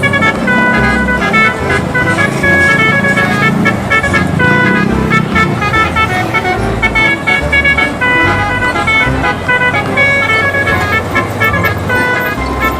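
Bus 'telolet' musical horn playing a quick tune of short notes at several pitches, over a pulsing low rumble.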